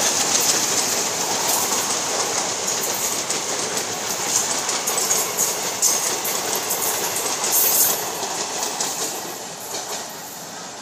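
Indian Railways passenger coaches passing close at speed, wheels clattering over the rail joints with a steady rushing noise. The sound fades away near the end as the last coach moves off.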